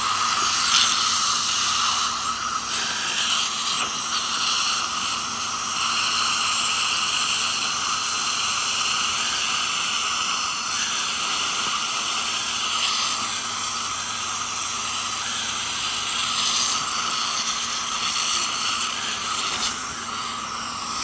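Ultrasonic dental scaler removing tartar from teeth, its water spray and the dental suction tube making a steady hiss with a faint steady hum underneath.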